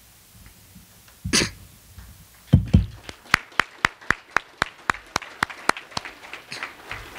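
A short cough-like burst and then a loud thump, followed by a few hands clapping in a steady rhythm of about four claps a second that fades near the end.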